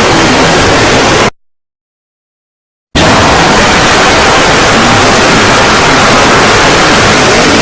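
Loud, harsh static hiss from an emergency-alert-style broadcast. It cuts out abruptly to silence about a second in and comes back just as suddenly about a second and a half later, with faint rising tones under the hiss near the end.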